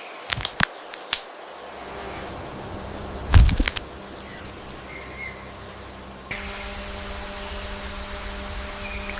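Quiet ambience with faint high chirps, a few sharp clicks, and a louder cluster of clicks with a low thud about three seconds in. Around six seconds in the background changes abruptly to a louder steady hum.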